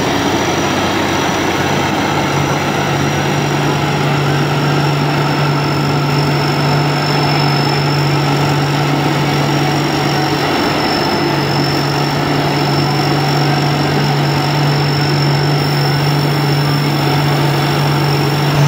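Tracked rice combine harvester running steadily as it cuts lodged rice, its engine note dipping briefly about ten seconds in. A thin, steady high whine sits over the engine throughout.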